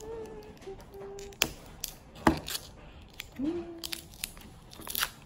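Crinkly plastic wrapping being peeled and torn off a toy surprise ball by hand, with a few sharp crackles and snaps.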